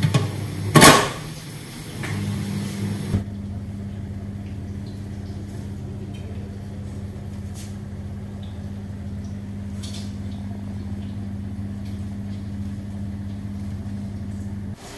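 A metal steamer lid clanks down onto the pot about a second in, followed by a steady low hum with a few faint ticks, which stops just before the end.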